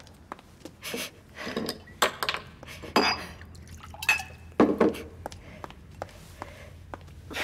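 Glass clinking and water being poured from a glass bottle into a drinking glass, with light footsteps and short knocks. A woman sniffs and sobs.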